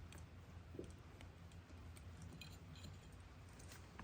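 Near silence: a low steady hum with a few faint light clicks of small metal parts and tools being handled.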